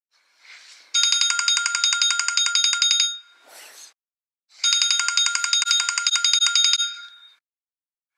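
A phone's old-style telephone-bell ringtone rings twice, each ring a fast trilling bell about two seconds long. There is a short soft swish before the first ring and another between the rings.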